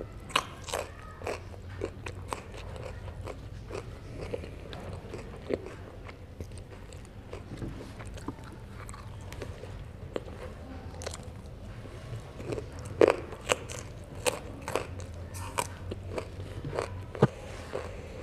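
Close-miked eating of herring: irregular crunchy bites and chewing, with a burst of louder crunches a little past two-thirds of the way through.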